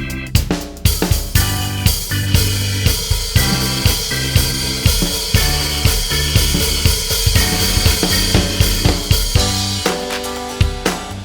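Upbeat background music with a steady drum-kit beat: snare, bass drum, hi-hat and cymbals.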